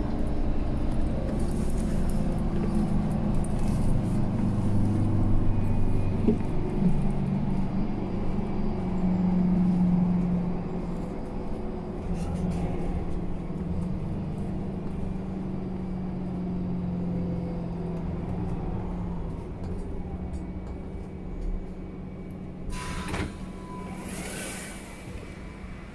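Mercedes-Benz Citaro C2 G NGT articulated bus's natural-gas engine running under way, heard from inside the bus: a steady drone whose note climbs and then holds as the bus picks up speed. Near the end the engine quietens, and a brief high steady tone sounds.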